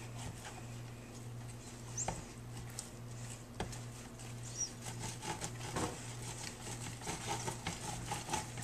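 A plastic spatula stirring thick cornmeal-and-flour bait paste in a plastic tub: irregular soft scrapes with a few light knocks against the tub, over a steady low hum.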